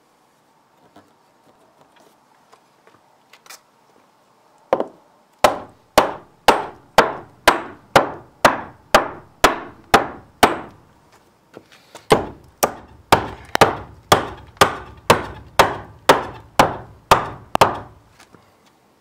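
Hammer striking a wooden block to knock it loose from the barn framing: a few light taps, then two runs of steady blows at about two a second, with a short pause between.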